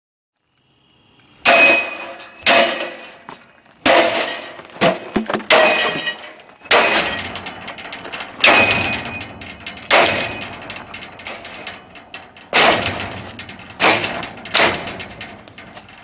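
A wire bird cage being smashed: about a dozen hard metal blows, irregular and a second or so apart. Each blow sets off a ringing, rattling clatter of wire mesh.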